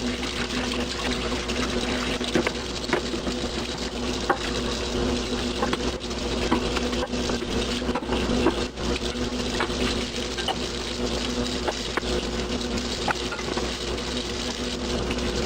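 Kitchen tap running while dishes are washed, with scattered light clinks of dishes and utensils.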